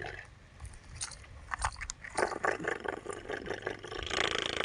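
Toy JCB backhoe scooping and loading loose material: crunching and scraping with sharp plastic clicks, growing denser and steadier in the last second or so.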